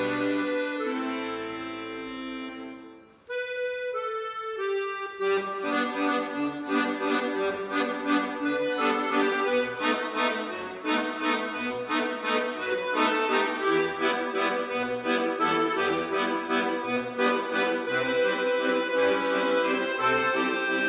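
Trio of Moreschi button accordions playing a two-part arrangement: held chords fade away about three seconds in, then after a short break a new section starts with a steady pulsing rhythm of chords under a melody.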